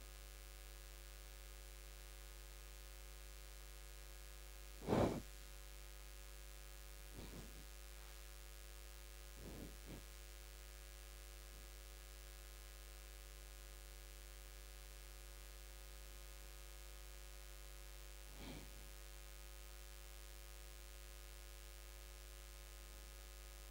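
Quiet room tone with a steady electrical hum, broken by a few short faint noises, the clearest one about five seconds in.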